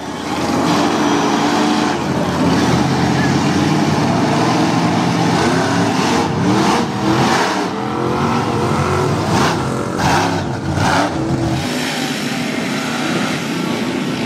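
Lifted GMC mud truck's engine revving hard, its pitch rising and falling, as the big mud tires churn through the pit and throw mud. The low engine sound drops away shortly before the end.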